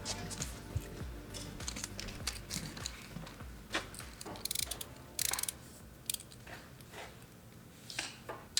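Scattered light clicks and taps from small objects being handled, with two short rapid rattles about four and a half and five seconds in.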